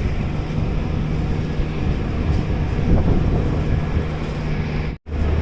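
Express train running, with steady wheel-on-rail noise and a constant low hum, heard from inside a coach with air rushing past. The sound cuts out abruptly about five seconds in.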